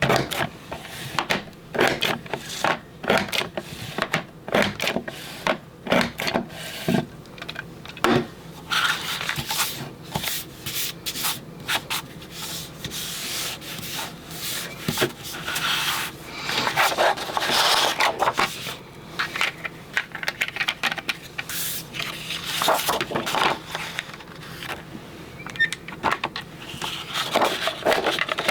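Creative Memories Border Maker punch worked again and again along strips of paper: a string of sharp clicks and clunks, with paper sliding and rubbing through the punch between them.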